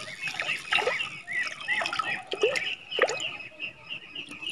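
Birds chirping, with a few lower falling calls mixed in. Near the end they become a steady run of short high chirps, about four a second.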